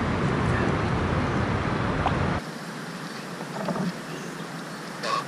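Steady low rumble on the microphone that cuts off suddenly a little over two seconds in. After it, quieter open-air sound with a few light clicks near the end.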